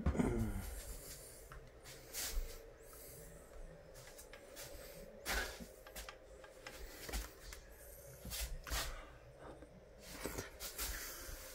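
Scattered rubbing and light clicking handling noises, with a short falling tone at the very start and a faint steady hum underneath.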